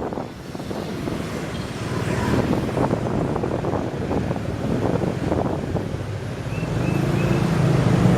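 Wind buffeting the microphone on a moving motorcycle taxi, with the motorbike's engine and road noise underneath; the engine grows louder near the end.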